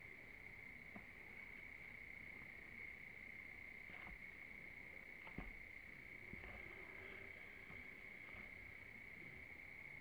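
Near silence: faint outdoor ambience with a steady, high-pitched whine and a few soft ticks.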